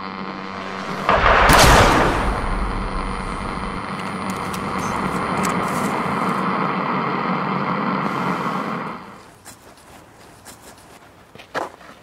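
A single loud pistol shot about a second in, followed by a long noisy tail over a steady droning tone. The sound drops away suddenly at about nine seconds.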